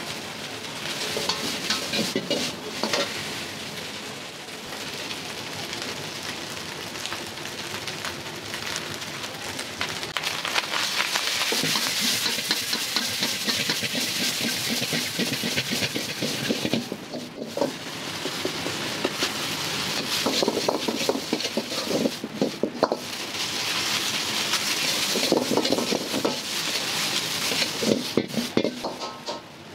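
Food frying hard in a wok, sizzling steadily while a metal ladle stirs and scrapes against the pan with many small clacks. The sizzle swells and briefly drops away a few times.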